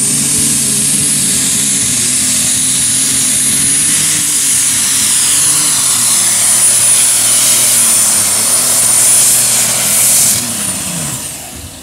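A super stock pulling tractor's turbocharged diesel engine runs flat out under load down the track. A high turbo whistle holds steady over the engine's drone, then falls away about ten seconds in as the engine winds down at the end of the pull.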